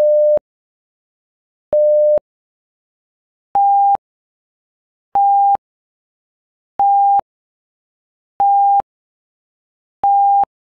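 Electronic alert beeps: short pure-tone beeps repeating about every 1.7 seconds, the first two lower and the next five a step higher in pitch, each with a small click at its start and end.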